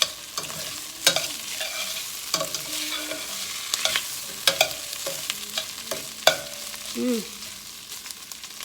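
Beef liver and onions sizzling in a frying pan, with a utensil scraping and clinking against the pan many times, the loudest knocks about a second in and about six seconds in.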